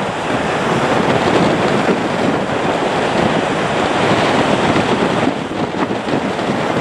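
Boeing 737-800's twin CFM56 jet engines making a loud, steady rushing roar as the airliner rolls along the runway. The roar swells a little in the first second and eases slightly near the end.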